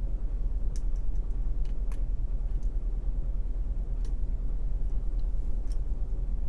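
A few faint, light clicks of a gem lock pick working against the pins inside a pin-tumbler lock, irregularly spaced, over a steady low hum.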